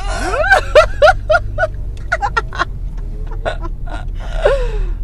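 Women laughing in quick runs of giggles, mixed with squeaky, gasping hiccups, inside a moving car with the steady low drone of the engine and road underneath.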